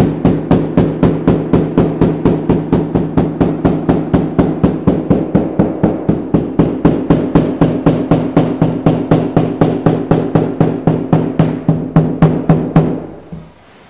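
Hammer striking steadily and quickly along a carpet edge, about four blows a second, beating the tack strip down through thin Berber carpet so its nail points no longer poke up; the blows stop shortly before the end.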